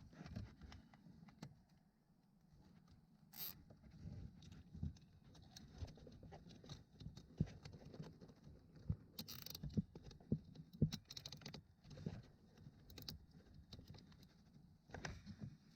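Faint, irregular clicks and rustling of a plastic zip tie being threaded and pulled tight around a car's wiring harness, with small knocks from handling the plastic module and connectors. Short rustling bursts come about three and nine seconds in.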